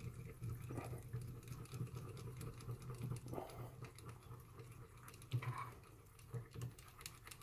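Light, irregular clicks and taps of hands handling the compound slide and its crank handle on a 7x14 mini lathe, over a steady low hum.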